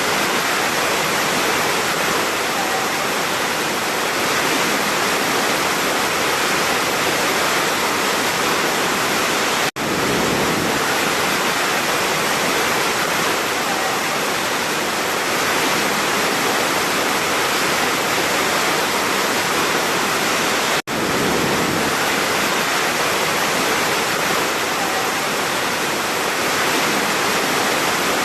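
Large waterfall, a steady, dense rush of falling water, cut twice by a brief gap of near silence.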